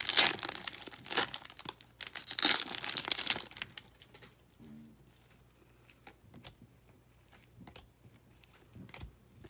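Trading card pack wrapper being torn open and crinkled by gloved hands, loud for about the first four seconds with a short pause near two seconds. Then only faint scattered clicks and rustles as the chrome cards are handled.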